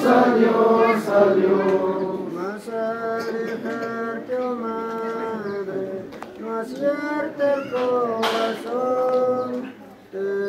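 A group of voices singing a slow religious hymn, holding long drawn-out notes.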